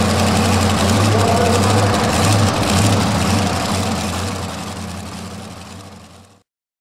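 Super modified two-wheel-drive pulling truck's engine idling steadily, fading out over the last couple of seconds.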